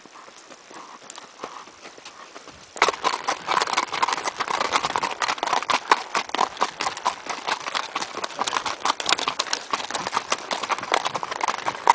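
A gaited horse's hooves clip-clopping on a dirt track in a quick, even rhythm, heard close up from the saddle. The hoofbeats start suddenly about three seconds in; before that only faint sound.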